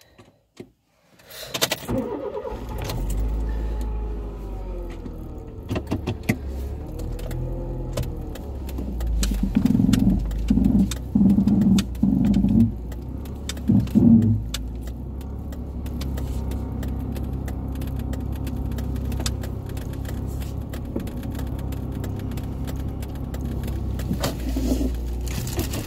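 Car engine heard from inside the cabin: after a moment of near silence it comes in suddenly, runs with its pitch rising and falling, then hums steadily as the car drives off. Several loud uneven bursts come in the middle.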